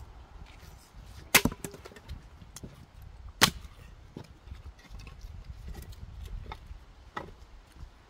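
Axe splitting firewood on a chopping block: two loud chops about two seconds apart, with lighter wooden knocks between them and another near the end.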